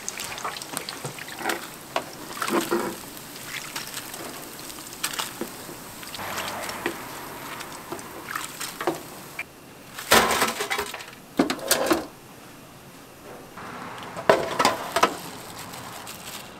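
Scattered knocks and clinks of kitchen utensils and containers over a steady background hiss. The clatter grows busier around the middle and again near the end.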